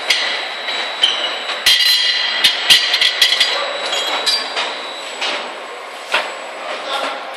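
Automatic tin can filling and capping line running: square metal tins clank and knock against each other and the conveyor. A cluster of ringing metallic knocks comes about two to three and a half seconds in, over steady machine noise.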